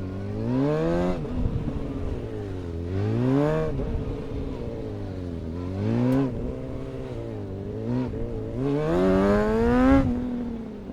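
Suzuki GSX-R 750's inline-four engine revving up and dropping back about five times as the throttle is opened out of tight low-speed turns, falling back to a high idle between the pulls.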